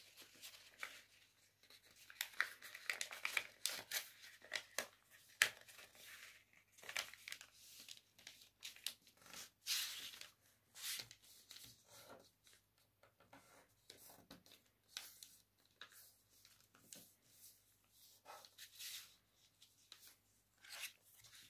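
Faint, intermittent rustling and crinkling of a sheet of paper as it is opened out, folded and its creases pressed flat by hand.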